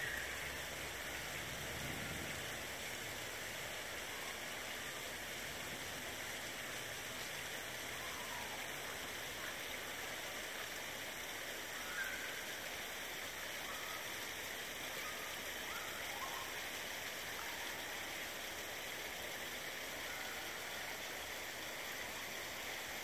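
Steady rushing of running water, an even, unbroken flow.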